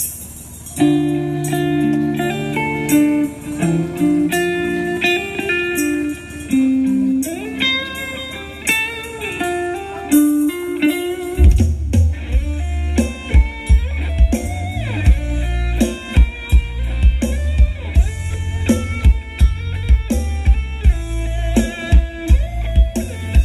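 Live band music over a large PA system, picked up on a camera's microphone: an electric guitar lead plays alone at first, then about halfway through bass and a heavy kick-drum beat come in.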